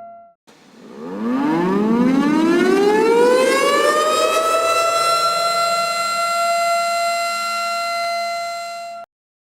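Tornado siren winding up from a low growl to a steady high wail over about four seconds. It holds that one pitch for several seconds, then cuts off suddenly near the end.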